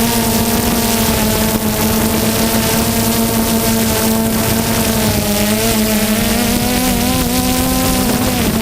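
An aircraft engine running with a steady drone, its pitch wavering slightly in the second half, with wind buffeting the microphone.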